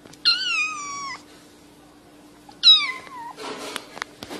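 A domestic cat meowing twice, each meow falling in pitch: a long one, then a shorter, louder one about two seconds later. A scuffling noise with a few sharp clicks follows near the end.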